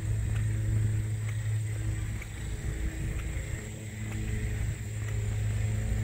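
Vehicle engine running steadily at cruising speed with road noise, a constant low drone.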